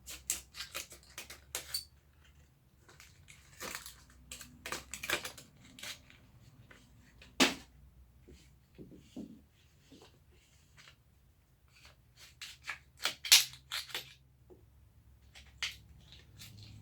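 Irregular clicks, knocks and rustling of hands handling chair-kit parts and their packaging, with a sharper knock about halfway through and another cluster of knocks later on.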